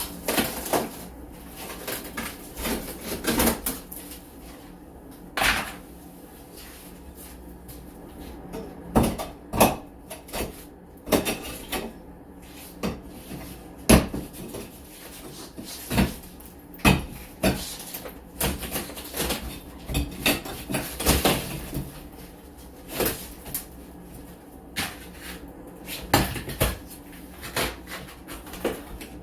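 Irregular sharp knocks and bangs of hand demolition work on interior walls and trim, some single and some in quick runs of several strikes.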